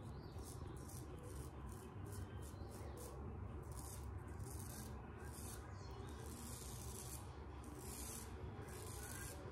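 Inoue Tosuke kamisori straight razor scraping through lather and stubble on the neck, in short strokes about two a second.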